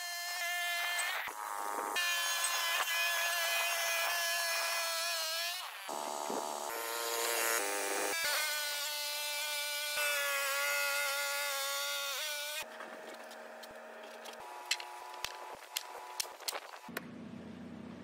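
Portable bandsaw sawmill running through a cut: a steady, high-pitched mosquito-like whine, shifting slightly in pitch between a few short stretches. Near the end it gives way to a quieter stretch with scattered sharp clicks and knocks.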